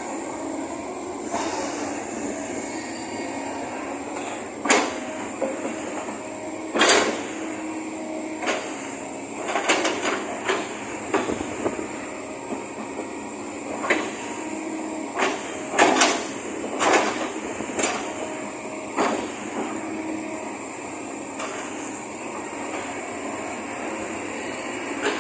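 Kobelco SK200 hydraulic excavator running, with sharp metallic clanks and knocks at irregular intervals, a dozen or so in all.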